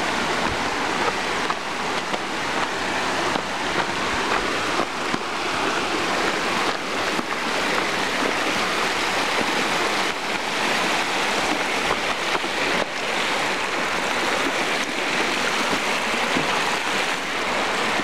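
Steady rush of a stream and waterfall, running water with no break.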